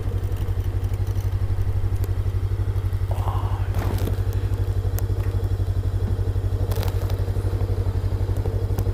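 Motorcycle engine idling steadily with an even, fast pulse, with a short scrape about three seconds in and a sharp click near seven seconds.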